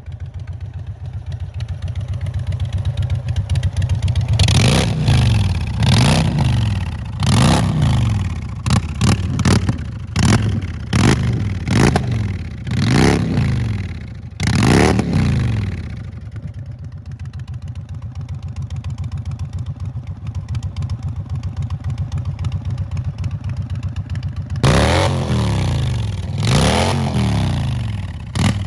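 Indian Chief V-twin engine running through a chrome one-piece aftermarket exhaust. It idles, then is revved in a quick series of throttle blips that each climb and fall back. It settles to idle for several seconds and is blipped again near the end.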